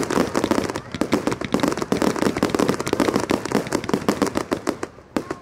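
Fireworks: a dense, rapid run of bangs and crackles as aerial shells and their stars burst, easing off near the end.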